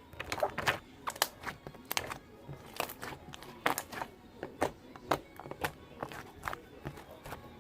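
Gold pearl slime being squeezed and worked by hand, giving irregular sticky clicks and small pops.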